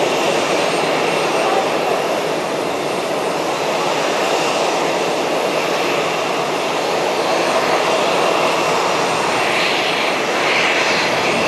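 ATR42-600 twin turboprop engines running at low power as the airliner taxis, a steady, even engine and propeller noise.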